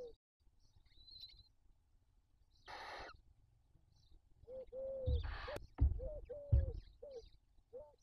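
Barn owls at the nest: an owlet's rasping hiss about three seconds in, then in the second half another hiss with a quick series of short rising-and-falling chirps and a couple of low thumps, the owlet's hissing being its food-begging call while the adult feeds it.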